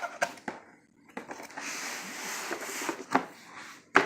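Cardboard box being opened and handled: a stretch of rustling and scraping of cardboard between a few sharp knocks.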